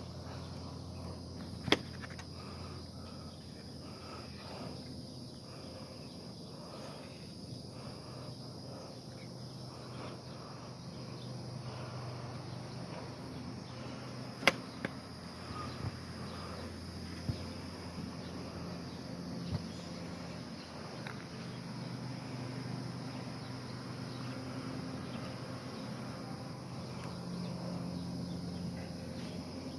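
Insects chirring steadily over a low background rumble, with a sharp click about two seconds in and another about halfway through.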